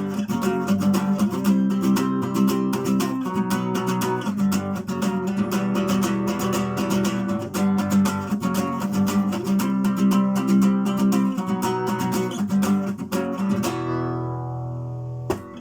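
Acoustic guitar strummed in a steady rhythm of chords. Near the end a last chord is left to ring and fade, then is cut off with a short click.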